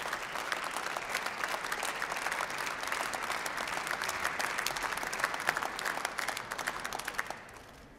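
Members of parliament applauding, many hands clapping together, which dies away about seven seconds in.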